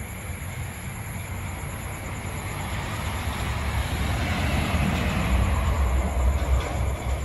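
A low rumble that grows louder through the middle and eases near the end, over steady high-pitched trilling of night insects.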